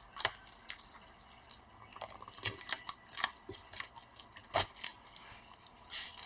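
Hands peeling tape off a laptop display panel and handling the panel: a scatter of small sharp clicks and taps with short crinkly tearing sounds between them, the loudest click about four and a half seconds in.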